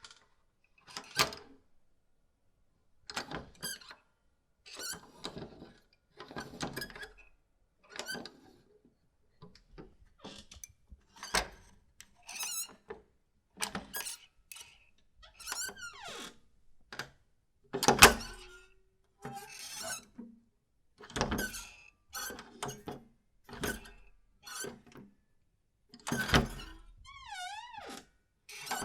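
A string of short door sounds one after another with brief gaps: a door bolt sliding and knocking home and a wooden door's hinges squeaking. The loudest knock comes about two-thirds through, and a wavering squeak near the end.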